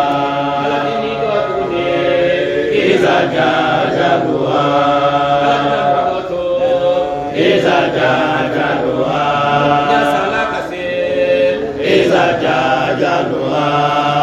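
A man's voice in solo Islamic religious chanting, with long, drawn-out melodic phrases and short breaks for breath between them.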